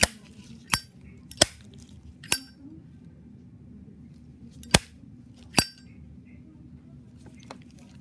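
Zippo windproof lighter's hinged metal lid being flicked open and snapped shut, six sharp metallic clicks with a brief ring, in two groups: four in the first two and a half seconds, then two more about a second apart near the middle.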